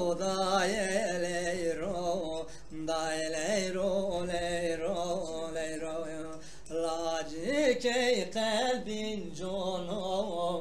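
A man singing a Zazaki folk song in long, drawn-out, wavering phrases, with short breaks between them about two and a half and six and a half seconds in.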